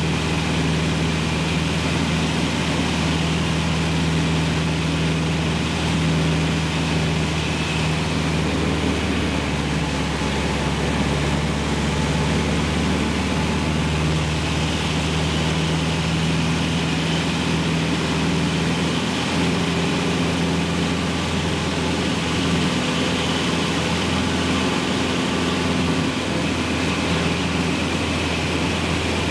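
Cessna 150's four-cylinder Continental O-200 engine and propeller droning steadily, heard from inside the cabin in flight.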